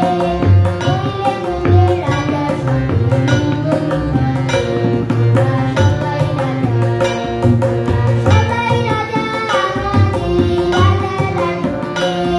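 Harmonium playing a melody over held drone notes, with drum strokes keeping a steady rhythm underneath.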